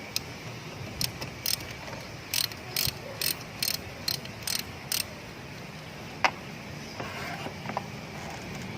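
Hand ratchet wrench clicking in short strokes, about two a second for some four seconds, then one sharper click a little later.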